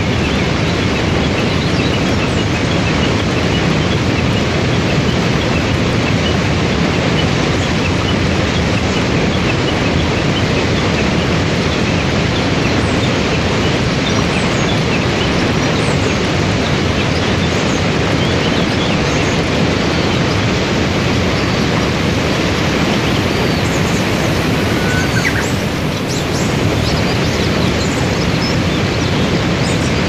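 Forest waterfall and the cascade below it: a loud, steady rush of falling and churning water.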